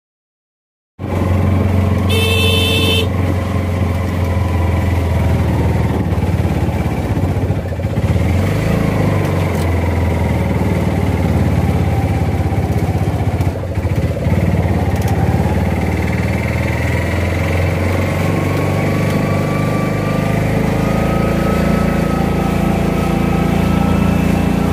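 Small engine of a three-wheeled auto-rickshaw running under way, heard from inside the cab, its pitch shifting as the speed changes. The sound cuts in about a second in, with a short beep about two seconds in.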